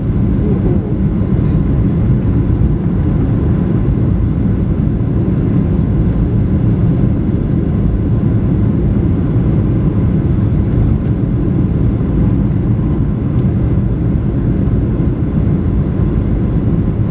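Steady, loud cabin noise inside a Boeing 737-900: the rumble of its two CFM56-7B jet engines and the air rushing past, heard from a cabin seat, with no sudden bangs or changes.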